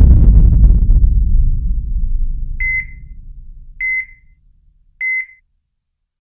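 A deep cinematic boom, the loudest sound, fading out over about two and a half seconds, followed by three short high electronic beeps about a second apart.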